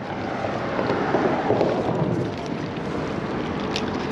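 Steady wind and moving-water noise, with a faint tick or two near the end.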